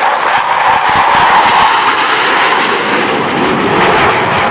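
Jet-engine noise from two Blue Angels F/A-18 Hornets flying low past in tight formation. It is loudest about a second in and eases a little as they move away.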